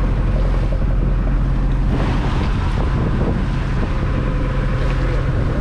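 Small excursion boat's engine running steadily under way, a constant low hum, with wind buffeting the microphone.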